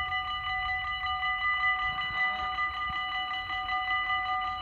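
Dutch automatic half-barrier level crossing's warning bells ringing in a fast, steady, even pulse while the crossing is closing for an approaching train.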